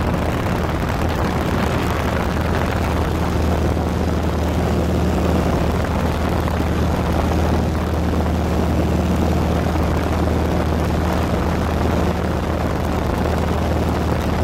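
Small high-wing propeller airplane in flight, heard from inside the cabin: the engine and propeller make a steady drone with a low hum under it and an even rush of air.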